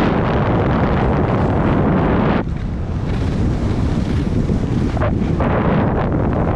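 Wind buffeting a helmet-mounted GoPro Hero 8 Black microphone at skiing speed, mixed with the hiss and scrape of skis running over packed snow. The noise is steady and loud, and the hiss thins briefly about two and a half and five seconds in.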